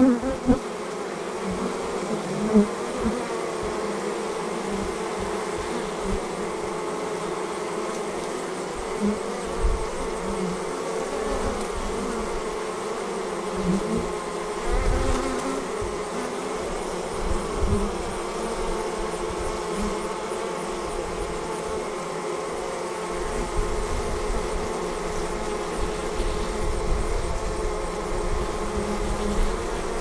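Honeybees buzzing at a hive entrance: a steady, many-winged drone, with single bees swelling louder for a moment as they fly close past every few seconds.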